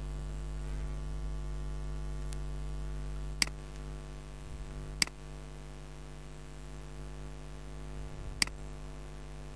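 Steady electrical mains hum with an even stack of overtones, broken by three sharp computer-mouse clicks about three and a half, five and eight and a half seconds in.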